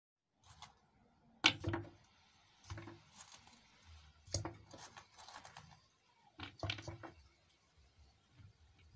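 Hands handling a plastic bottle and its cap: a run of sharp plastic clicks and taps in several short clusters, with some rustling, the loudest click about a second and a half in.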